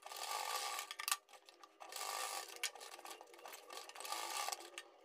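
Black domestic sewing machine stitching fabric in short stop-start runs of about a second each, with a few clicks between runs; faint.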